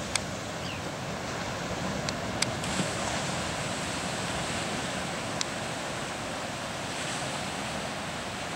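Ocean surf washing steadily, with wind. A few sharp clicks stand out above it.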